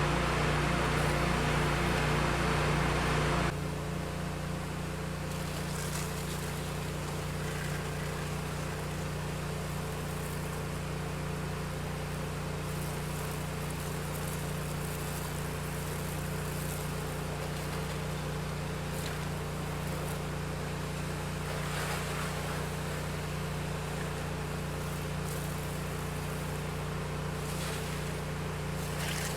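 An 8-gallon-a-minute pressure washer's engine running steadily, with the spray hissing loudly for the first few seconds. About three and a half seconds in, the spray sound drops away and the engine drone carries on.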